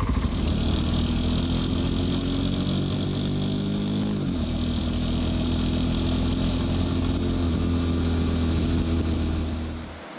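Motorbike engine running under way: its pitch climbs as it accelerates, falls sharply about four seconds in at a gear change, then climbs again and holds before dying away near the end.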